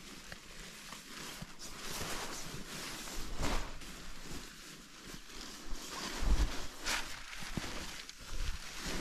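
Down sleeping bag and nylon tent fabric rustling and swishing as the bag is spread out and smoothed over an inflatable sleeping pad, with a few low bumps of handling in the middle and near the end.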